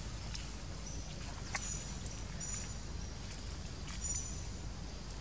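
Outdoor forest ambience: a steady low rumble, with short high-pitched chirps repeated every second or so and a few sharp clicks.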